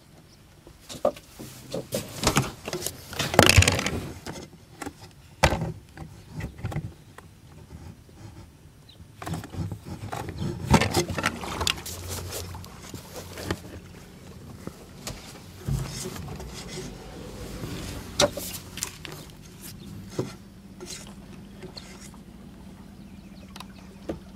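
Irregular knocks, bumps and rustling as a handheld camcorder is moved about aboard a small wooden sailboat, with the loudest thumps about three, five and eleven seconds in. A faint low steady hum sets in near the end.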